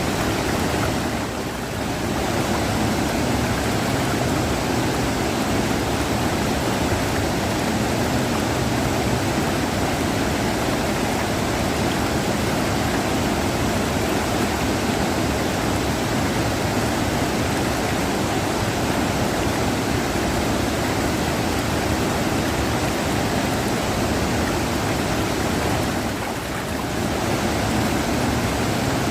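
Rushing river water: a steady, dense rush of flowing water that briefly dips in loudness twice, once just after the start and once near the end.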